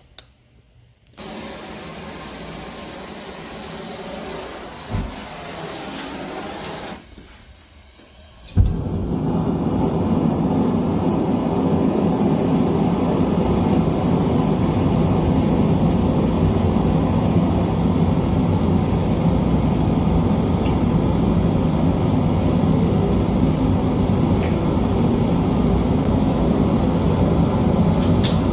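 Gas-fired melting furnace running: a steady rush of air from about a second in, a short lull, then a thump near nine seconds after which the burner runs much louder and steadily.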